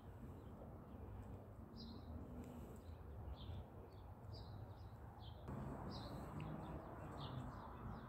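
Faint, short, high chirps of small songbirds, repeated every half second or so, over a steady low outdoor rumble. The rumble gets a little louder at a cut about five and a half seconds in.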